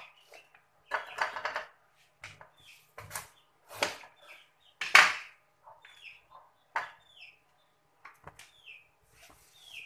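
Kitchen knife cutting through a raw bitter gourd on a plastic chopping board: a run of irregular crunchy cuts and knocks on the board, the loudest about five seconds in. A bird chirps briefly about once a second in the background.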